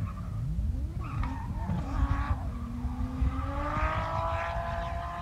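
A drift car's engine revving up and down as it slides, with tyre squeal; near the end the revs climb steadily in one long rise.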